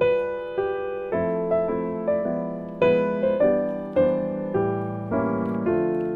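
Background piano music: a gentle melody of single struck notes that ring and fade.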